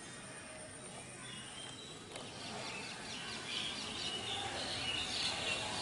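Birds chirping in quick runs of short high notes, growing louder about halfway through, over steady outdoor background noise.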